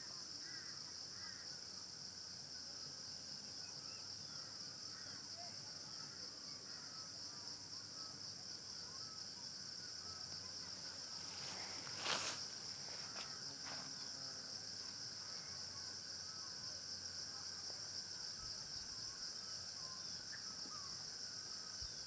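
A steady, high-pitched drone of insects, with faint short bird chirps here and there. About twelve seconds in, a brief loud rustle or knock cuts through.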